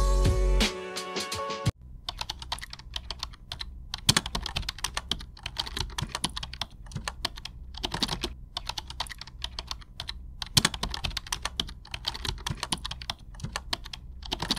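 A short music jingle ends about two seconds in. Then a ballpoint pen writes on paper, sped up, giving a dense, irregular run of quick scratches and taps.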